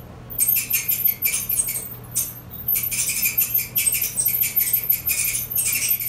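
Kenmore gas dryer running with a steady low hum and rapid, high-pitched squeaking that comes in quick clusters of several squeaks at a time. The squeak is the fault that the repair sets out to cure.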